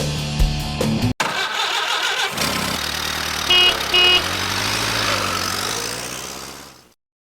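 A car engine running with two short horn beeps about half a second apart, then fading out. In the first second, background music runs on before a sudden cut.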